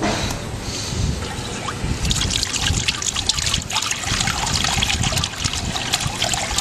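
Water running in a Campania FT76 Passaros garden fountain, trickling and splashing steadily into its basin. The splashing starts suddenly and grows fuller about two seconds in.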